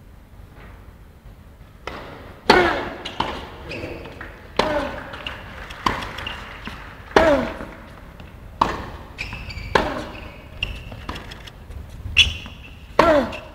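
Tennis rally on an indoor hard court: a racket striking the ball and the ball bouncing, sharp echoing knocks about once a second starting about two seconds in, with short high shoe squeaks between them.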